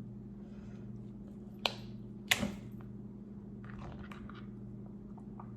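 Crab leg shells being cracked open by hand: two sharp snaps about a second and a half apart, the second with a short crunching tail, then a few small clicks of shell. A steady low hum runs underneath.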